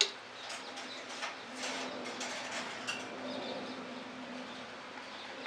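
A steel spoon clinks sharply against a steel pot at the start, then a few lighter clinks follow as it scoops rice out of milk boiling on a gas stove. A steady low hum and hiss run underneath.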